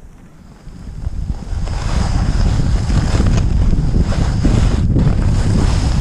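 Blizzard wind buffeting the microphone, a loud low rumble that swells about a second and a half in and stays strong.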